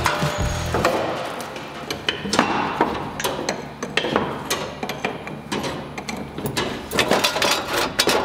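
Irregular knocks and clanks of metal being struck, coming in quick clusters with short gaps between them.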